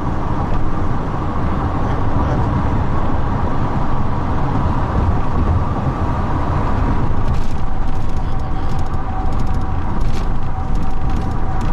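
Steady low rumble of vehicle noise, like a moving car or passing traffic. A faint steady hum joins it about seven seconds in.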